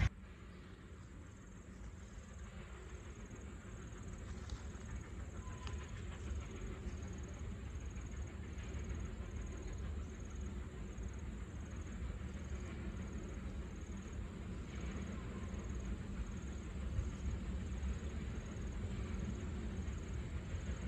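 Distant steam train approaching, a low rumble that grows slowly louder. An insect chirps steadily at a high pitch, about one and a half times a second.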